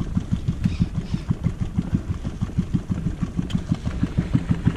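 Boat's outboard motor running at idle, a steady low pulsing of about eight beats a second.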